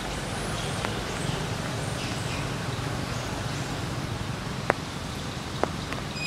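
Steady rain falling on forest leaves, with two sharp ticks of drops landing about a second apart near the end and a few faint high chirps early on.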